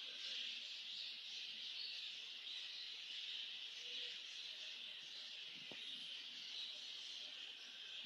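A steady high hiss with a few faint chirps in it, and a single soft click late on.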